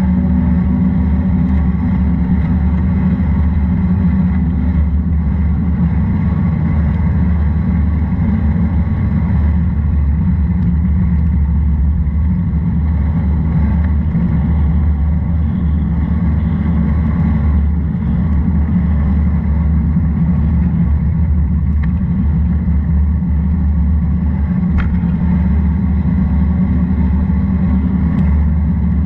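Steady low rumble of a vehicle in motion on a wet paved road, heard from on board, with no change in pace or engine note.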